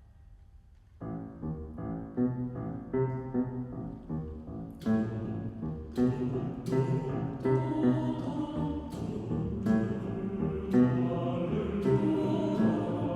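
Mixed choir singing with piano accompaniment. After a brief hush, the choir comes in about a second in with short, rhythmic chords, and from about five seconds in sharp, accented strikes mark the beat.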